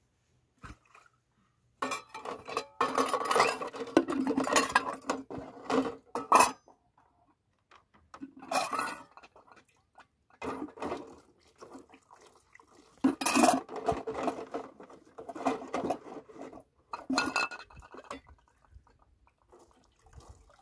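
Metal pots, bowls and cups clattering and clinking against each other as they are washed by hand. The sound comes in several bursts, the longest and loudest about two to six seconds in.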